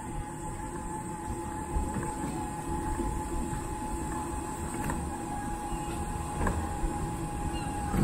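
Steady low rumble of vehicle traffic with a faint steady whine.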